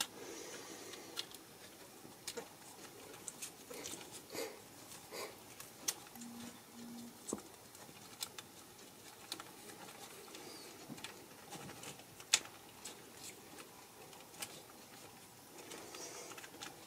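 Scattered small clicks and taps of a hand screwdriver and metal screw as a shock's mounting screw is tightened into an RC truck's plastic suspension mount.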